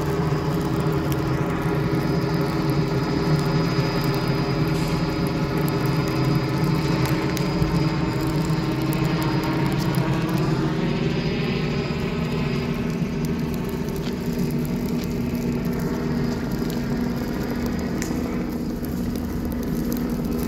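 Helicopter flying low overhead, its rotor and engine running with a steady drone; the pitch bends around ten seconds in as it moves.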